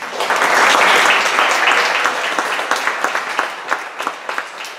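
Audience applauding, rising quickly to full strength and thinning out to more scattered claps near the end.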